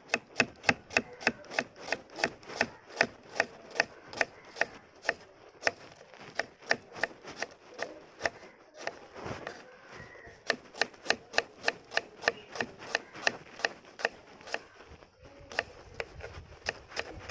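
Kitchen knife slicing shallots on a wooden chopping board: a steady run of sharp taps as the blade cuts through and strikes the wood, about three a second, pausing briefly a little past halfway before carrying on.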